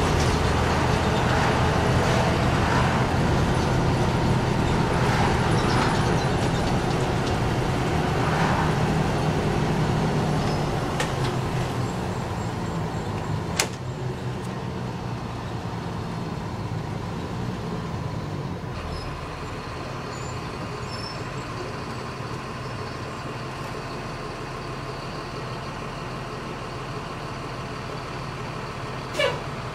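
Engine and road noise of a 2008 Thomas Saf-T-Liner C2 school bus heard from the driver's seat, a steady hum that turns quieter about twelve seconds in as the bus slows in traffic. A sharp click sounds about halfway through and again near the end.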